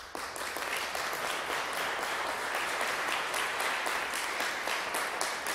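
Audience applauding, breaking out all at once and continuing steadily.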